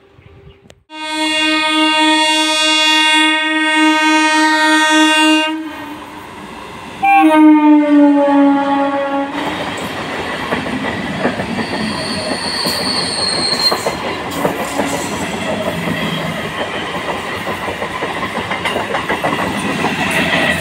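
Indian Railways EMU local train sounding its horn twice: a long, steady blast about a second in, then a shorter one that drops in pitch as the train closes in. The coaches then run past close by, a loud rumble with clickety-clack from the wheels over the rail joints.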